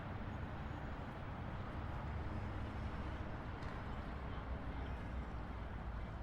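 City street traffic: a steady low rumble of passing cars and engines with no single vehicle standing out.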